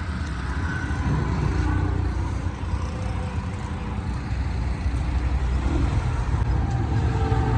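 Street traffic: a steady low rumble of cars and other vehicles running and passing on a city road.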